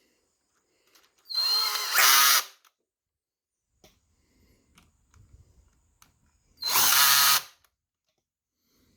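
Handheld power drill run twice in short bursts of about a second each, near the start and again about two-thirds of the way through. Its motor spins up to a steady whine each time.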